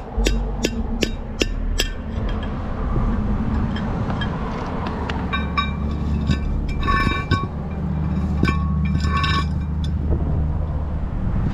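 Hammer blows on a punch driving an old wheel-bearing race out of a brake rotor hub, about two or three sharp knocks a second for the first two seconds. A few seconds later come ringing metallic clinks as the loose race and steel parts are handled. A low wind rumble on the microphone runs underneath.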